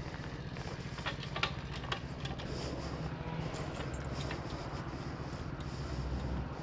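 A pit bike's YX 160cc single-cylinder four-stroke engine idling steadily while stopped. A few light clicks come in the first two seconds.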